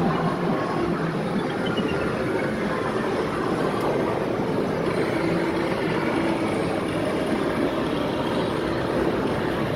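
Steady din of arcade game machines blending into one constant wash of noise, with a faint falling run of electronic beeps about a second and a half in.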